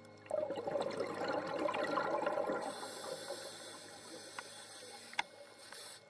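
Bubbling, gurgling water heard underwater, starting suddenly a moment in. A high steady hiss joins about halfway through, and there is a single sharp click near the end.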